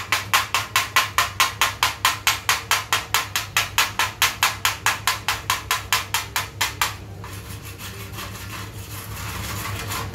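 Welding chipping hammer rapping on a freshly welded steel plate, about five sharp metallic strikes a second, knocking the slag off the weld bead. The strikes stop about seven seconds in and give way to softer, irregular scraping on the plate.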